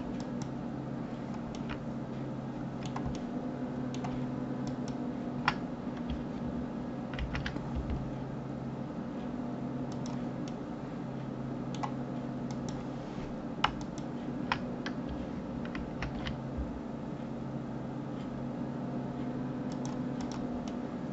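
Computer keyboard keys and mouse buttons clicking at irregular intervals, over a steady low hum.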